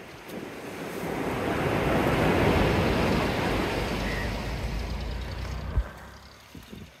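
A sea wave breaking and washing up the beach: a rushing noise that swells, peaks, then fades away, with one short thump near the end.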